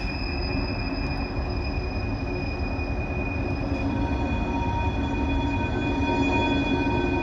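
Coal train rolling by, its steel wheels squealing on the rail in several steady high tones over a continuous low rumble, growing slightly louder toward the end.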